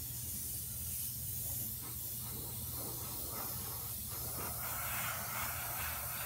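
Airbrush spraying paint, a steady hiss of air.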